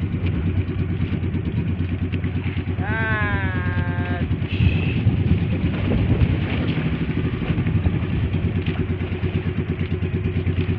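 Motorized outrigger banca's engine running steadily under way, with a fast even beat. A short call from a voice rises and falls over it about three seconds in.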